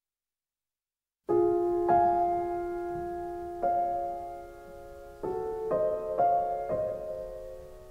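Dead silence for just over a second, then piano music begins: held chords and notes struck every second or so, each fading before the next.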